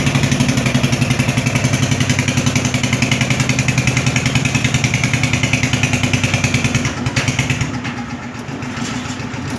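Concrete mixer's engine running with a rapid, steady beat, turning quieter about seven seconds in.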